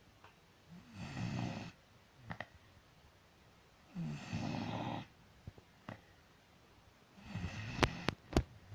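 Dog snoring: three snores about three seconds apart, each lasting under a second. Near the end, a few sharp clicks are the loudest sounds.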